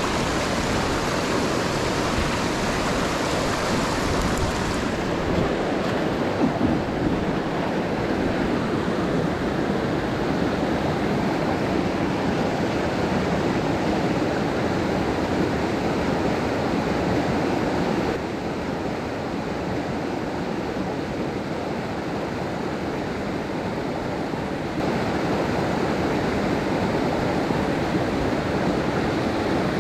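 Rushing water of a mountain stream, a steady loud noise that shifts abruptly in level and tone a few times, about 5, 18 and 25 seconds in.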